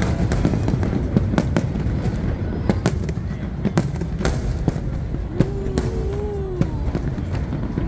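Fireworks going off in quick, irregular succession: sharp bangs and crackles over a continuous low rumble.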